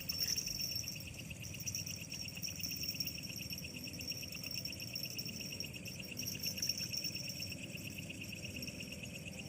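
Night insects, crickets or similar, calling in a steady, fast pulsing trill, with a low rumble of background noise beneath.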